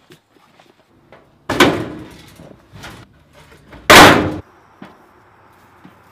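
Loud clanging bangs from an old sheet-metal chicken nesting box being handled: one about a second and a half in, then a louder one about four seconds in, with a few lighter knocks between.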